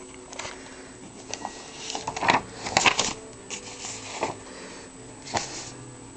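Paper rustling and handling noise as a spiral-bound sketchbook is shifted and moved. The rustles come in irregular crackles, loudest in a cluster about two to three seconds in, with another brief rustle near the end.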